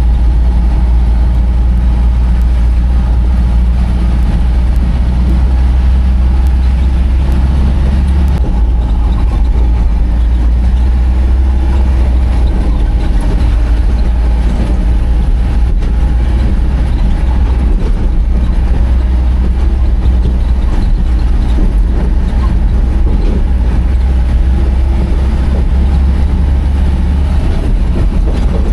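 Heavy vehicle's diesel engine running steadily with a loud, deep hum. Its pitch shifts slightly about eight seconds in.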